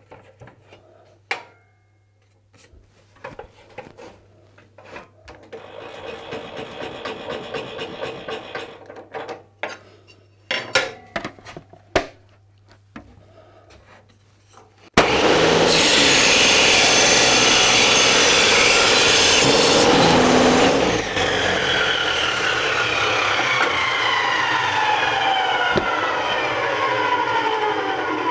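Bench table saw with a 100-tooth Saxon blade cutting a 6 mm aluminium plate. First the plate is slid along the metal table with a few knocks. About halfway in, the saw starts abruptly and the blade cuts through the aluminium with a loud, high screech for about five seconds, then the blade winds down with a falling whine.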